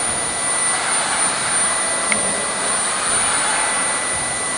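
Steady CNC workshop machinery running: a constant high-pitched whine over a loud, even rushing hiss.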